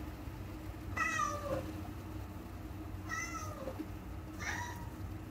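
A cat meowing faintly three times, each meow falling in pitch.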